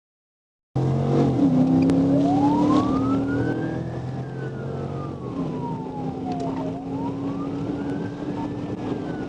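Police car siren on a slow wail, rising and falling in pitch about every four and a half seconds, over steady vehicle running noise. It cuts in abruptly just under a second in.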